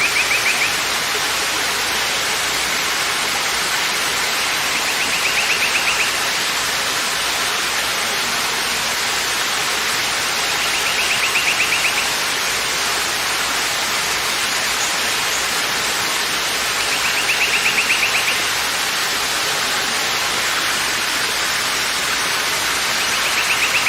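Waterfall running with a steady, loud rush of falling water. A short high buzzing trill rises above it about every six seconds, five times in all.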